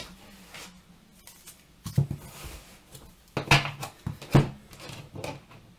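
Round oracle cards being handled and shuffled on a tabletop: a soft rustle of card against card and a few sharp taps as cards and deck are set down.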